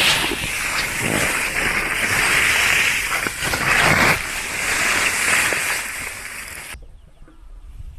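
Ferns and leafy undergrowth rustling and swishing loudly against the camera as it is pushed through them. The sound cuts off suddenly near the end.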